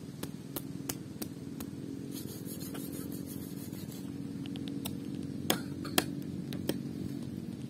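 A steady low motor hum, with scattered sharp clicks and taps on top: several light ones in the first two seconds and two louder ones a little past the middle.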